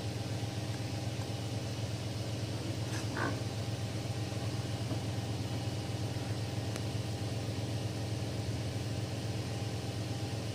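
Steady low hum of the 3D printer's cooling fans running. A brief faint wavering sound comes about three seconds in, and a light click near seven seconds.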